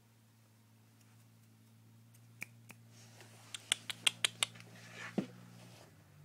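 Scratching and clicking against a cardboard box while a cat is petted in it: scattered sharp clicks that bunch into a quick run in the middle, then a brushing rustle and a thump near the end.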